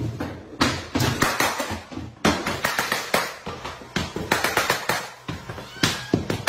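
Mallet striking a pneumatic flooring nailer, driving nails into hardwood floorboards along a row: a quick, uneven run of sharp knocks, about two or three a second.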